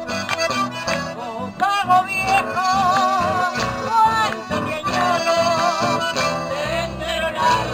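A woman singing with vibrato into a microphone, accompanied by an accordion; live folk music. Her voice is strongest from just under two seconds in.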